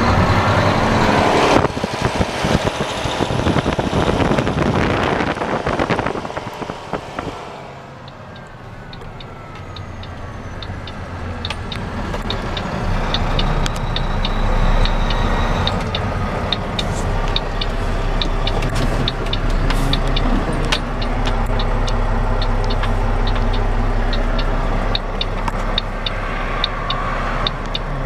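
2008 Mack Pinnacle heavy truck running: a loud rushing noise for about the first seven seconds, dropping away near eight seconds, then a steady low engine hum that builds again with rapid sharp ticking over it.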